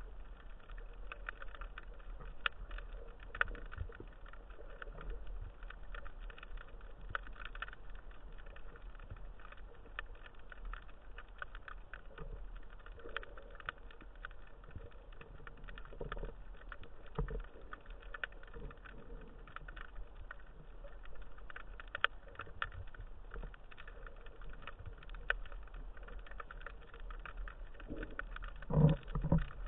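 Underwater ambience: a faint, continuous crackle of tiny clicks and pops, with a few louder low thumps near the end.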